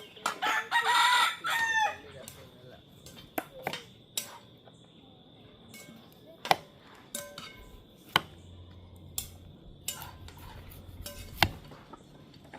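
A rooster crows once, a loud call lasting about a second and a half near the start. After it come scattered sharp clicks and knocks from kitchen work with a knife and utensils.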